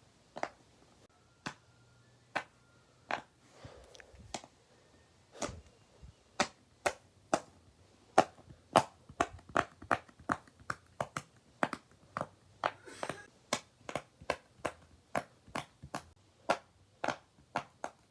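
Bubbles on big silicone pop-it fidget toys being pressed, each giving a sharp pop. The pops come sparsely at first, then in a quicker run of about three a second.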